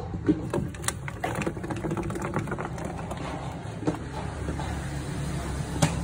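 Scattered light clicks and scrapes on a plastic tub where hatchling iguanas are moving, over a steady low hum, with a sharper knock near the end as one is picked up by hand.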